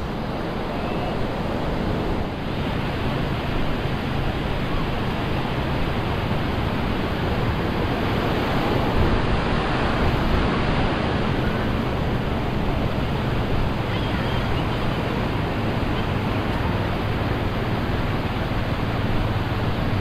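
Steady rush of surf breaking along a sandy beach.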